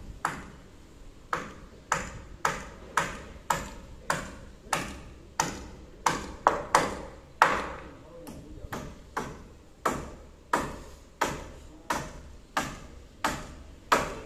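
Hammer nailing timber purlins onto wooden roof rafters: steady, evenly paced blows, about two a second, each a sharp ringing knock.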